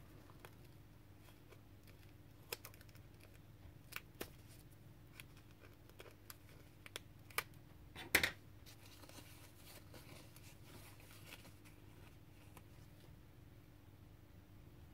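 Small scissors snipping through foam packing wrap, then faint clicks and rustles as the foam and a clear plastic sprue are handled, with one louder click about eight seconds in.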